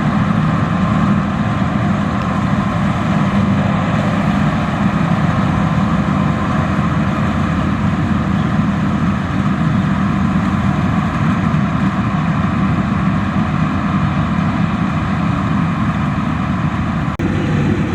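Combine harvester engine running steadily under load, a loud, even machine drone.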